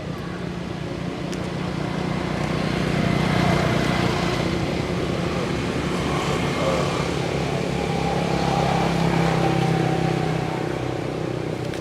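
An engine running steadily with a low, even hum, growing louder a couple of seconds in and easing off near the end.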